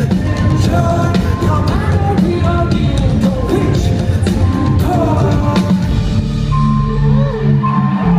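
Live band music recorded from the crowd: heavy drums and percussion under keyboards and guitar. The drums drop out about six seconds in, leaving held bass notes and synth.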